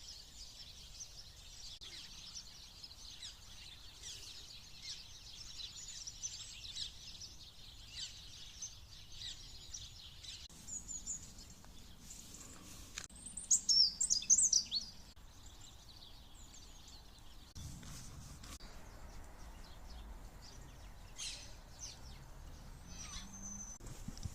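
Small songbirds chirping and singing in a steady chorus of short, high calls. A much louder, nearer burst of song comes about halfway through.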